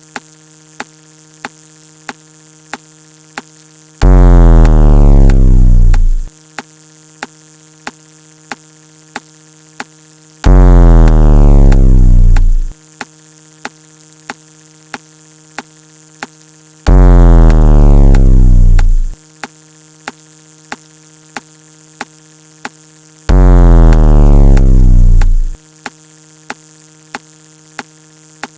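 Synthesized electronic sound effects in a repeating cycle. A very loud, low tone slides down in pitch for about two seconds, then gives way to a quieter steady buzz with a click roughly every two-thirds of a second. The cycle comes round four times.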